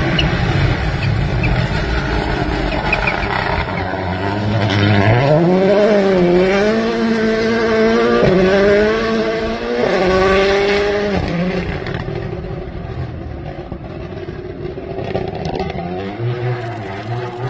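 Toyota GR Yaris Rally1's 1.6-litre turbocharged four-cylinder rally engine at full throttle on gravel, revving hard with quick gear changes where the pitch drops. It grows louder as the car approaches and is loudest about halfway through as it passes, then fades as it drives away, over the hiss of tyres on loose gravel.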